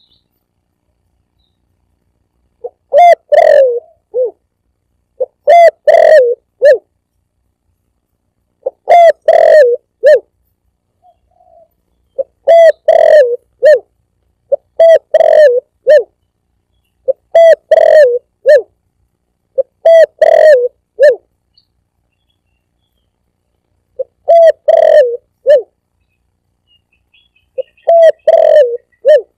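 Spotted dove (tekukur) cooing, a recorded lure call: phrases of several notes about a second long, repeated every two to three seconds.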